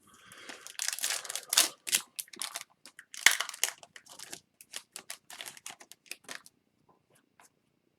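Crinkling and quick clicks of a foil hockey card pack being opened and its cards handled. The sound is dense at first, then thins to scattered clicks.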